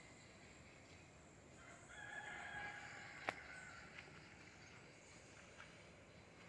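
A rooster crowing once, faint, a call of about a second and a half starting roughly two seconds in. A single sharp click follows just after it ends.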